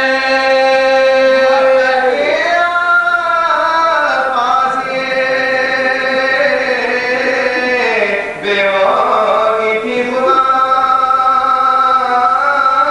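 A man chanting an Urdu marsiya (elegy for the martyrs of Karbala) in a slow, melodic recitation style, unaccompanied. He holds long notes with slow glides in pitch, with a short break for breath about eight seconds in.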